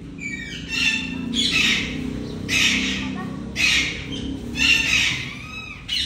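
Rose-ringed parakeets screeching: about five harsh squawks, roughly a second apart, some with short bending glides in pitch.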